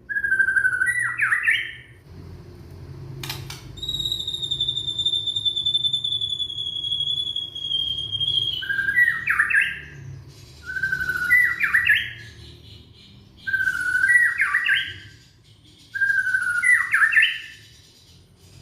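Young white-rumped shama (murai batu) singing: a repeated phrase of a short held note breaking into a rising, jumbled flourish, coming about every two to three seconds. Partway through, a single long high whistled note is held for about four seconds, sinking slightly.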